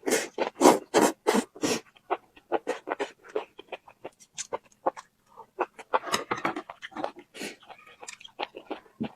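Close-miked eating sounds: a person chewing and crunching food, with a quick run of crunchy bites in the first two seconds, then slower, scattered chewing crackles.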